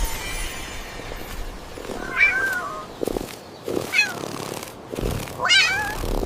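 A cat meowing three times, about two, four and five and a half seconds in, over a steady background hiss.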